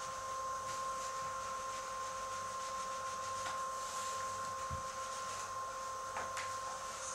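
A steady high-pitched whine with a fainter lower tone beneath it, under faint rustling and a few light ticks as linen canvas is folded and handled at the stretcher's corner.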